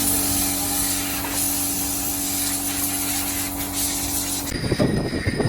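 A loud, steady spraying hiss with a steady machine hum under it, cutting off abruptly about four and a half seconds in. A crackling, rattling noise follows.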